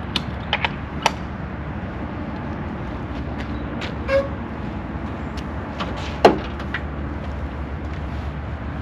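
A few sharp clicks as latches are worked on the Jeep's rooftop tent. Then the Jeep JK's swing-out rear tailgate is unlatched and swung open, with a loud creak that slides down in pitch, all over a steady low rumble.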